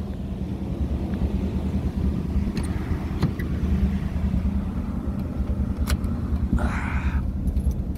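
Dodge pickup's 318 V8 engine idling steadily, with a sharp click about six seconds in and a short rustle near the end.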